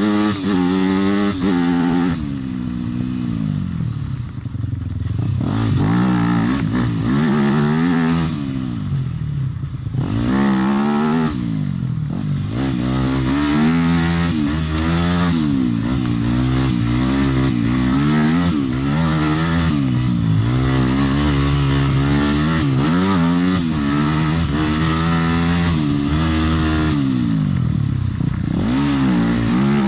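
Yamaha dirt bike engine under way on a trail. Its pitch climbs and drops again every second or two as the throttle opens and closes and the gears change, and it eases off briefly a few seconds in and again around ten seconds.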